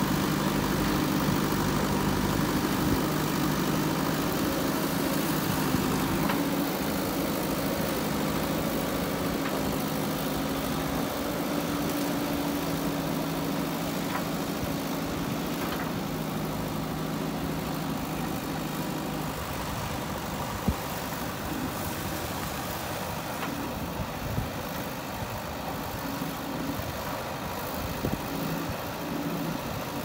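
JCB 3DX backhoe loader's diesel engine running steadily while the backhoe digs. Its hum drops back about two-thirds of the way in, and a few sharp knocks come in the last third.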